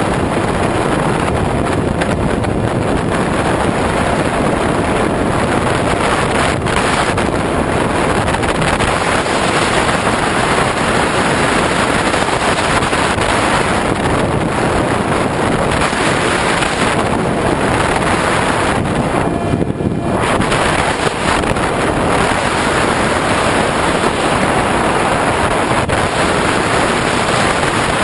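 Airflow buffeting the onboard microphone of an RC model aircraft in flight: a loud, steady rushing noise with no clear motor tone, briefly thinning about twenty seconds in.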